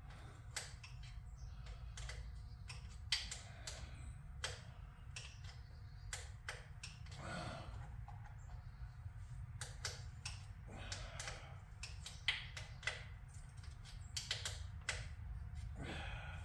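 Scattered light clicks and taps of small metal parts and hand tools, from hand work threading the motorcycle's clutch cable, with a low steady hum underneath.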